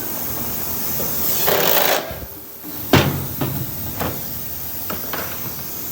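A sharp knock and several lighter clicks from mounting hardware and tools being handled while running-board brackets are fitted, over a steady hiss. The loudest knock comes about halfway through.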